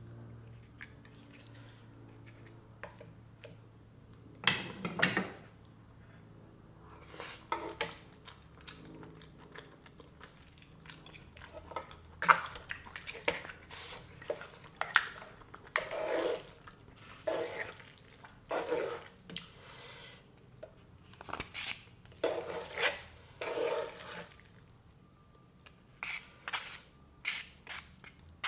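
Close-up eating sounds of black bean noodles with mussels and seafood: irregular wet slurps and smacks, with chopsticks clicking against the pot and bowl. The loudest burst comes about five seconds in.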